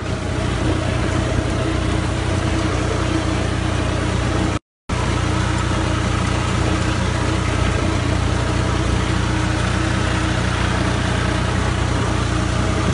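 Al-Ghazi tractor's diesel engine running steadily while the tractor drives through floodwater, heard from the driver's seat. The sound cuts out for a moment about four and a half seconds in.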